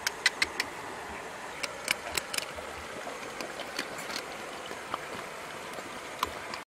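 Several dogs eating from a basket of cooked meat, with scattered short clicks of chewing and smacking over a steady low hiss.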